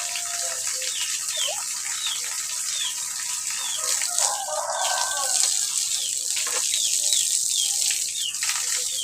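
Water running steadily from a tap while fridge parts are washed, with short high falling chirps repeating over it.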